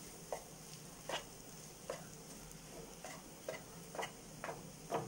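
A wooden spatula stirring grated potato masala in a frying pan: short scrapes and knocks against the pan about every half-second to second, in an uneven rhythm. Under them runs a faint, steady sizzle of the mixture frying in oil.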